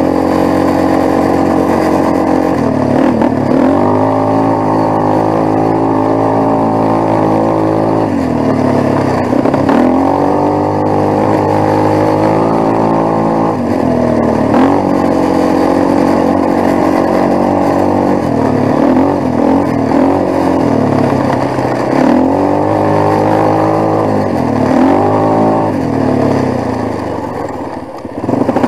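Quad (ATV) engine running under way, its revs dipping and climbing back again several times. It goes briefly quieter near the end.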